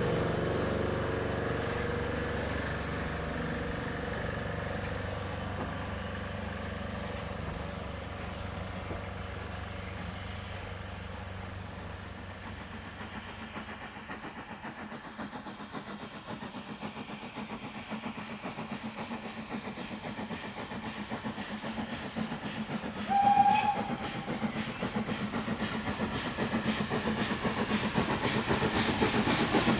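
A train pulling away and fading, then the steam locomotive 53809, a Somerset & Dorset Joint Railway 7F 2-8-0, approaching with its exhaust beats growing steadily louder. A short whistle blast sounds about three-quarters of the way through.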